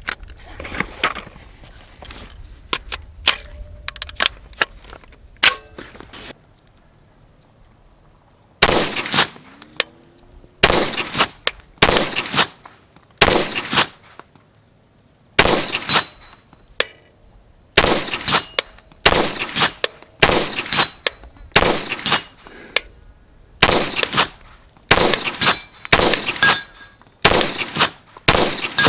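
CZ Scorpion Evo S1 9mm pistol firing slow, aimed single shots, one every second or two and sometimes two close together, with the clang of hits on steel targets downrange. The first several seconds hold only a few light handling clicks, and the shooting starts about nine seconds in.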